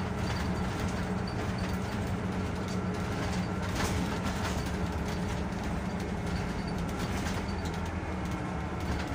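Solaris Urbino 12 IV city bus heard from inside while driving: a steady engine drone and road noise, with faint ticks and rattles from the cabin.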